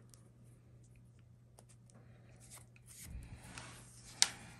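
Thin flexible gun-cleaning cable being drawn by hand through a .22 revolver's barrel: faint scratchy rubbing and small scattered clicks, growing into a longer scrape about three seconds in, with one sharp click a little after that. A steady low hum runs underneath.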